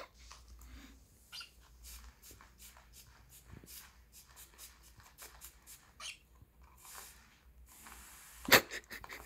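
Scattered short clicks and brief spritzes from a hand-pump sprayer on a plastic bottle misting a bathing cockatiel, with small splashes from its water tray and one louder sharp burst near the end.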